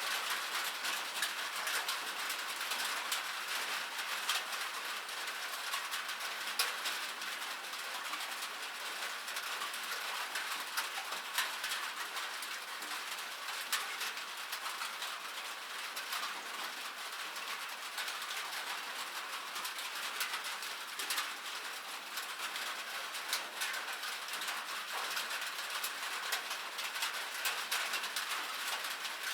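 Steady rain falling on a metal surface: a dense hiss of many drops with sharper individual ticks scattered through it.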